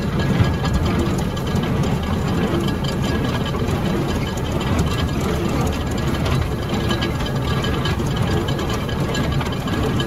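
A tractor engine runs steadily under load, pulling an International Harvester 440 small square baler, with the mechanical clatter of the baler's pickup and plunger at work as it bales orchard grass.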